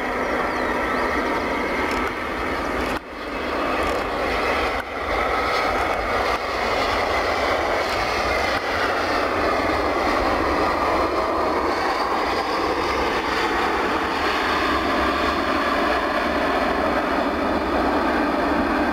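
Boeing 737-700's CFM56-7B jet engines running as the airliner lands and rolls out along the runway, a steady loud jet noise with no break.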